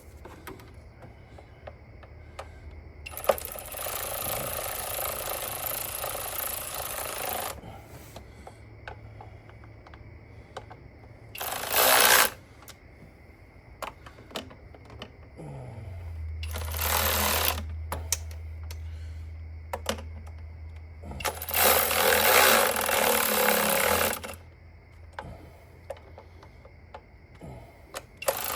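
A cordless power tool, such as an impact driver or power ratchet, run in five short bursts, the longest about four seconds, while parts around the throttle body are unbolted or refitted. A low steady hum comes in about halfway through.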